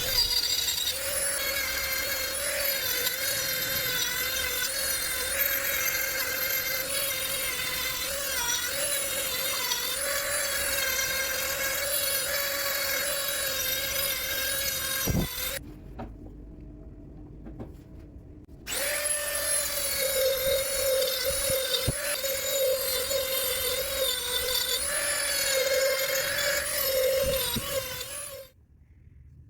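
High-speed power tool whining as it works wood, its pitch wavering slightly under load. It cuts out for about three seconds around the middle, starts again, and stops shortly before the end.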